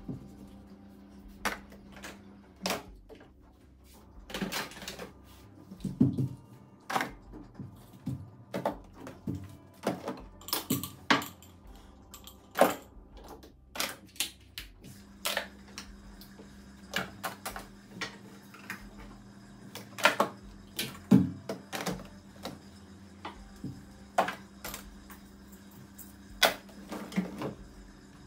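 Irregular clatter of toiletry bottles, tubes and small containers being picked up, knocked together and set down in a drawer as a bathroom sink counter is cleared, over a steady low hum.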